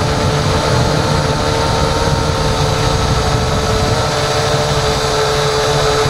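Motor and propeller of a small aircraft in flight, heard from an onboard camera: a steady, unchanging whine, with wind buffeting the microphone underneath.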